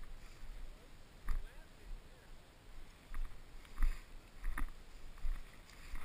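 Footsteps of a person walking through thick tall grass: irregular swishes and thuds as boots and legs push through the stalks, about one to two steps a second.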